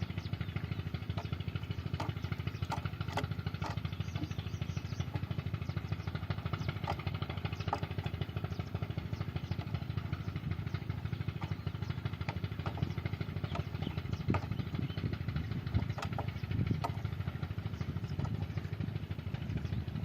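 Petter stationary diesel engine running steadily at a tube well, a fast even low putter, with scattered metallic clicks and knocks over it.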